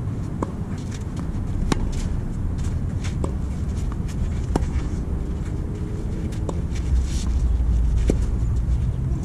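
Tennis rally: sharp pocks of racket strings striking a tennis ball, with the ball's bounces on the court, one every second or two, over a steady low rumble that grows louder near the end.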